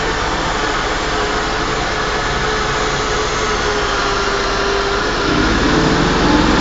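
Portable on-site flange facing machine running as it machines a pipe flange face: a steady motor whine with a loud, even hiss. The whine holds one pitch, then wavers and grows a little louder near the end.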